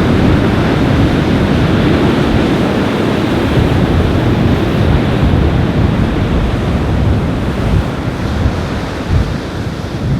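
Surf washing onto a beach under strong wind, the gusts buffeting the microphone with a low rumble.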